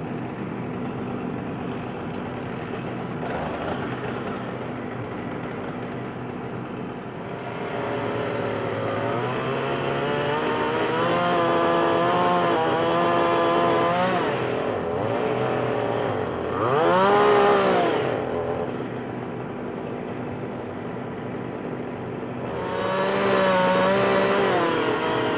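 JCB 3CX backhoe loader's diesel engine running and revving under hydraulic load as the backhoe arm moves, its pitch rising and falling several times, with one sharp rise and fall about two-thirds of the way through.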